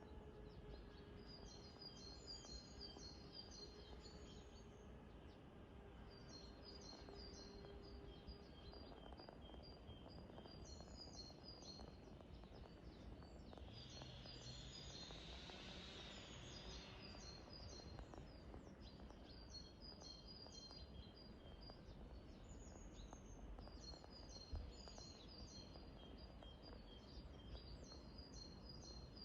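A songbird singing, repeating the same short, high, quick phrase every few seconds, faint over a steady background hiss. A brief rush of noise swells and fades about halfway through.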